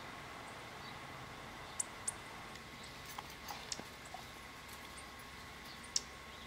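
A few short, high chip notes from small birds, scattered through, the loudest about two seconds in and again near the end, over a steady faint hum and hiss.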